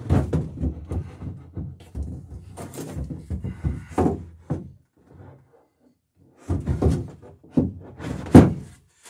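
A series of wooden knocks and thumps as the wooden centerboard box is shifted and held against the boat's bottom and frames. The knocks come in two clusters with a short pause between them, and the loudest knock comes near the end.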